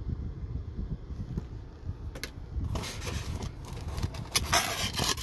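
Hands rubbing and scraping at a styrofoam box liner and cardboard, in bursts from about two seconds in and loudest near the end, over a low steady rumble.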